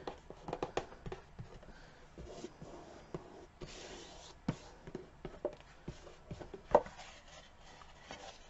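Fingers rubbing and pressing glued paper down onto a sign board, with scattered light taps and one sharper knock about two-thirds of the way through.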